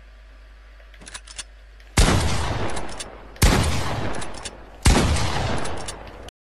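Three gunshots about a second and a half apart, each with a long fading echo, after a few faint clicks.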